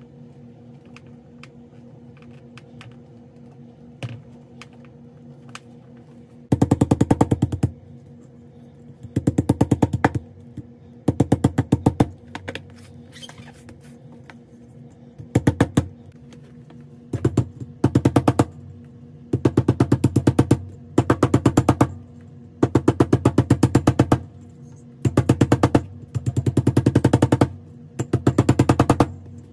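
A hammer striking a braided fine-silver wire on a steel bench block to flatten it: runs of very rapid, sharp metallic blows, each run about a second long, repeated with short pauses. Before the first run, a few seconds of faint clicks from the wire being handled.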